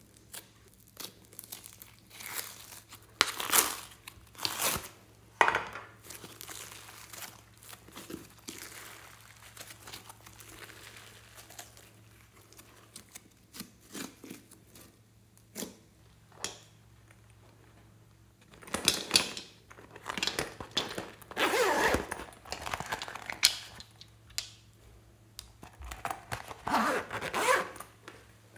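Foamy pink slime being pressed, pulled and folded by hand, giving irregular clusters of short crackles and pops, with a busy stretch early on and a longer, louder one in the second half.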